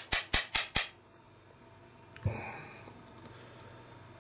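Rapid mechanical clicking from the fly-tying vise, about five clicks a second and slowing slightly, stops just under a second in. A single knock comes about two seconds in.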